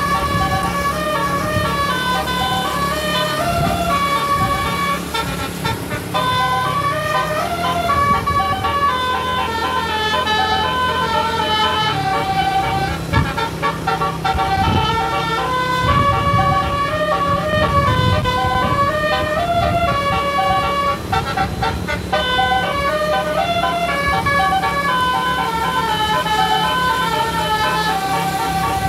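A bus's multi-tone telolet air horn playing a melody without pause, one note after another, over a steady low engine rumble.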